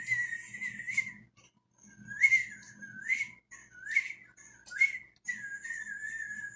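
A man whistling through pursed lips: a wavering held note, then a few short notes that each swoop upward, then a long held note that sinks a little near the end.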